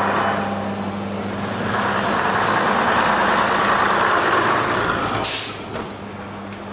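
Vintage double-decker bus engine running as the bus drives past, loudest in the middle, over a steady low hum. A little after five seconds comes a short, sharp hiss of released air, and then the engine noise falls away.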